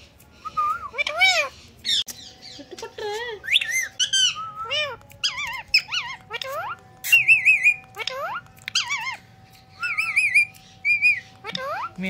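Indian ringneck parakeet calling: a string of short whistled and chirping calls that rise and fall in pitch, with quick warbling trills about seven and ten seconds in.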